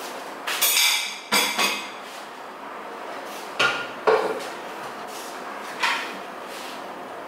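Dishes and kitchenware being picked up and set down on a kitchen counter: a handful of separate clinks and knocks, the first of them ringing briefly.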